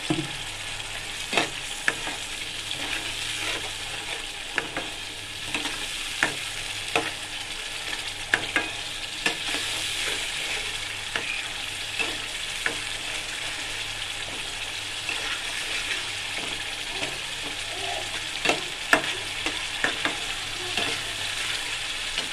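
Tomato and beetroot puree sizzling steadily in a metal kadai over a high gas flame, with a steel spatula scraping and clicking against the pan at irregular moments.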